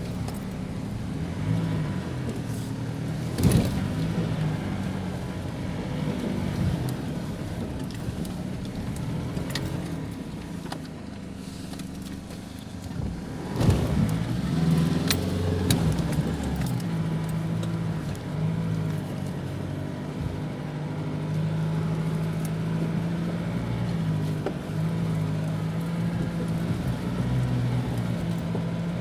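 Nissan Navara D40's 2.5 dCi four-cylinder turbodiesel engine running at low revs while crawling off road, its pitch rising and falling with the throttle. Two sharp knocks, one a few seconds in and a louder one about halfway.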